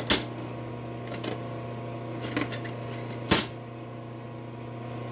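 Sharp metal clicks and clinks of drill bits and small steel tools being handled in a tool-chest drawer. There are a handful of clicks, the loudest a little past three seconds in, over a steady low electrical hum.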